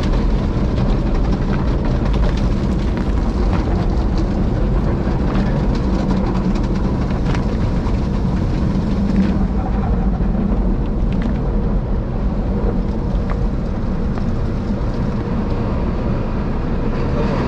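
Automatic tunnel car wash heard from inside the car's cabin: cloth brushes and a cloth curtain scrub and slap against the windows and windshield while water sprays, over the steady loud rumble of the wash machinery.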